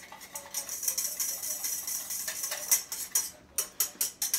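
Hand whisk beating egg replacer and water in a small stainless steel bowl: rapid metallic clinking of the wires against the bowl, thinning to a few separate clinks near the end.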